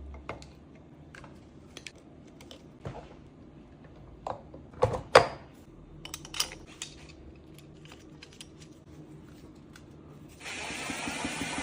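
Scattered clicks and knocks of hand tools and metal engine parts being handled during engine reassembly, with the sharpest knock about five seconds in. Near the end a steady hum sets in.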